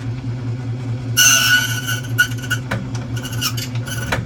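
Key duplicating machine running with a steady motor hum while its cutter cuts a padlock key blank. About a second in comes a loud, high-pitched screech of the cutter biting the metal that lasts about a second and a half, followed by lighter scraping strokes as the key is traced along.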